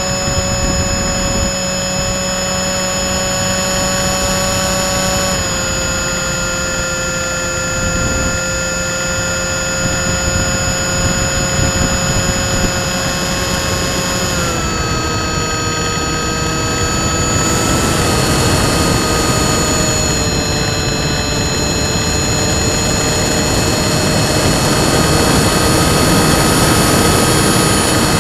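Electric motor and APC 6x4E propeller of an FPV flying wing, heard from the onboard camera: a steady whine over wind rush. The pitch drops slightly about five seconds in and again around fourteen seconds, then rises near the end as the throttle changes.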